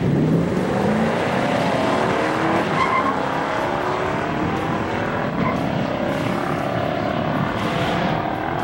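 A 1969 Shelby GT500's 428 Super Cobra Jet V8 at full throttle in a drag-strip launch, its note climbing through the gears of the four-speed manual.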